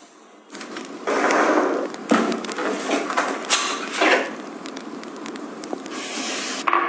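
Close-up handling noises: stretches of rustling with several light knocks and clicks.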